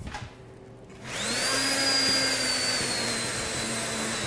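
Immersion blender switched on about a second in and running steadily as it purees a pot of thick soup, its high motor whine dipping slightly after it starts.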